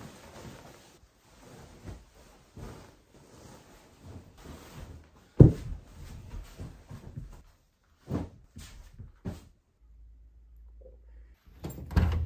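Futon bedding and a duvet rustling and swishing as they are handled and folded, with one loud thump about five seconds in and a few softer knocks a few seconds later. Near the end come louder knocks as a wooden door is handled.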